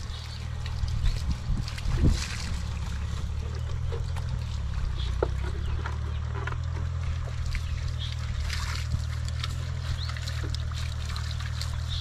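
A motor runs steadily with a low, even drone, under small splashes and trickles of water poured from a jug.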